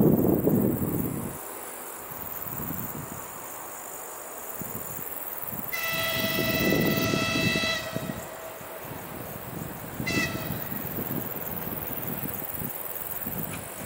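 Distant DPL1 diesel multiple unit sounding its horn: one long steady blast of about two seconds, then a short toot a couple of seconds later, given as it pulls away from the platform. A loud low rumble fills the first second or so.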